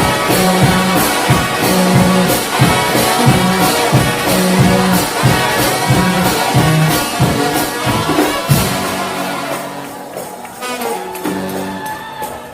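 Trombone-led gospel shout band playing with drums and tambourine, repeating bass notes pulsing under the brass. About eight and a half seconds in, the full band drops away and the music thins and grows quieter.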